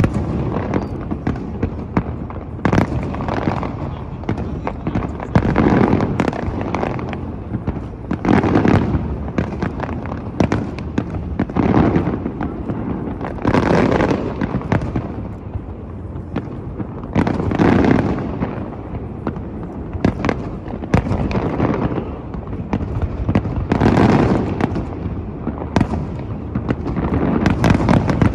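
Fireworks display: aerial shells bursting one after another, with bigger bangs every two to four seconds over a continuous rapid crackle and popping.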